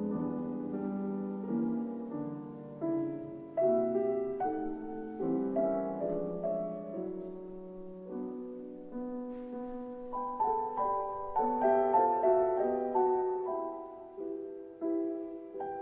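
Solo piano playing a slow, gentle melody of separate notes that each ring and fade, rising into a busier, higher passage around two-thirds of the way through.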